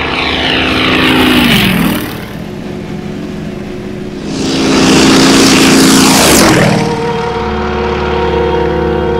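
Propeller airplanes making two fast, close passes. Each engine drone swells and then drops sharply in pitch as the plane goes by, the first about two seconds in and the second about six and a half seconds in. A steady engine drone carries on after the second pass.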